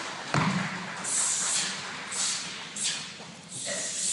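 A kung fu hand form being performed: a sharp thump about a third of a second in, then four short hissing whooshes from the performer's movements and breath, spaced roughly half a second to a second apart.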